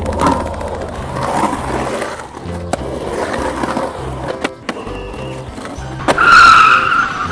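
Rolling sound effect of a toy truck's wheels running along a plastic track, over background music, with a few sharp clicks. Near the end a loud tone is held for about a second.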